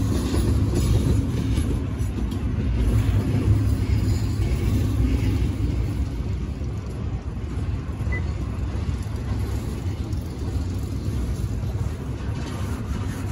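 Empty double-stack intermodal well cars of a freight train rolling past, their wheels on the rail making a steady low rumble that eases slightly about halfway through.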